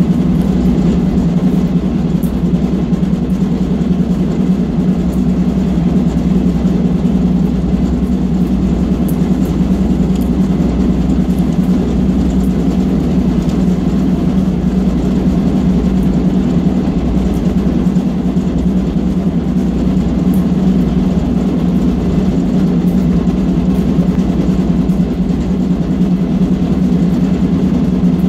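Diesel-electric locomotive running at speed, heard from inside the cab: a steady, unbroken engine drone with a strong low hum.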